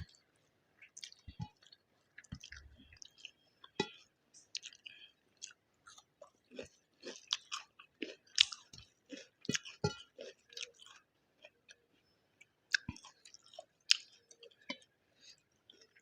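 Close-up chewing and wet mouth sounds of a person eating egg biryani with gravy: irregular smacks and clicks, several a second, with louder bites near the middle and toward the end.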